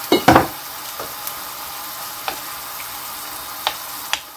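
Borscht dressing of tomato and vegetables sizzling steadily in a frying pan, with two knocks just after the start and a few light clinks of a metal spoon stirring it.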